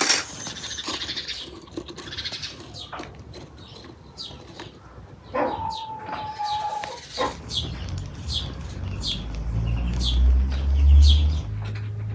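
A few sharp clinks of lump charcoal being handled in a metal bucket, then a farm animal calls once for about a second and a half. Short falling bird chirps repeat through the second half, over a low rumble that swells near the end.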